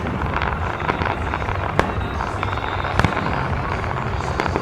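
Aerial fireworks display going off: a continuous rumble and crackle of launches and bursts, with sharp bangs about two seconds in, three seconds in and near the end.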